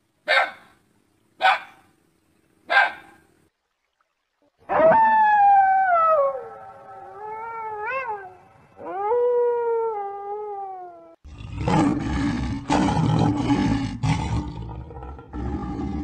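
A dog barks three short times. After a short pause a coyote gives three long howls that waver and glide in pitch. From about eleven seconds in, a lion roars and growls, rough and rumbling.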